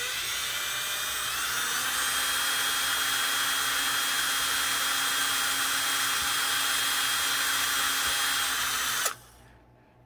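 Ryobi cordless drill running steadily with a stick pin chucked as its bit, boring a small pin hole into a wooden dollhouse microwave piece. The motor whine rises slightly about a second and a half in and cuts off suddenly about nine seconds in.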